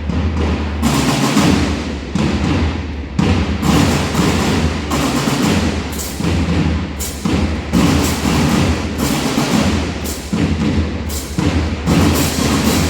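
Two bands playing together: a percussion-led piece with sharp strikes about once a second over low sustained notes.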